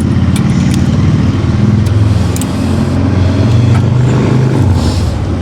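A motor running steadily with a low, slightly wavering hum, with a few light clicks over it.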